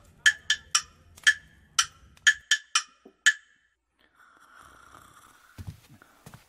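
A short percussion sting: about ten sharp, ringing wood-block-like strikes in a quick grouped rhythm, marking a scene change in an audio drama. A few soft low thuds follow near the end.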